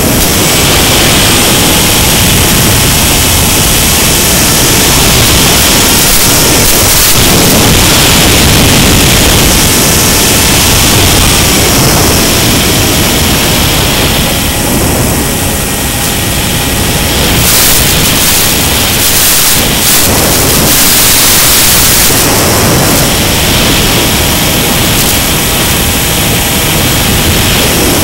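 Loud, steady rush of wind over the onboard camera microphone of a Mini Sky Walker FPV plane in flight, swelling and easing as it banks, with faint steady tones from its electric motor and propeller under the noise.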